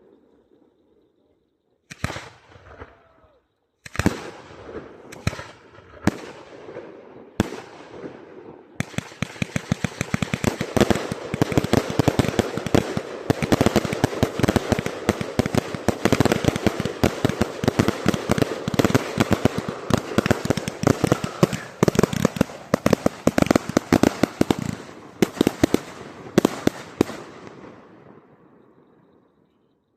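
Multi-shot firework cake going off: a few single sharp bangs a second or two apart, then a dense barrage of rapid cracks and pops for about eighteen seconds, tailing off near the end.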